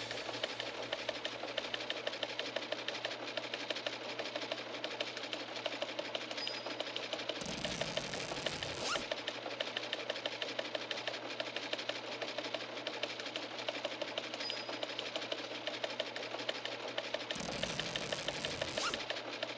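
A steady, fast mechanical clatter, like a sewing machine or small printing press, runs on as a sound bed. Two whooshing transition effects sound about 7.5 and 17.5 seconds in, each lasting about a second and a half.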